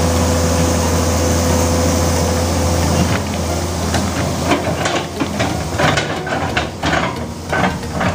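Komatsu PC200 hydraulic excavator's diesel engine running steadily. From about three seconds in, a run of sharp, irregular cracks and snaps as the bucket tears up branches and roots.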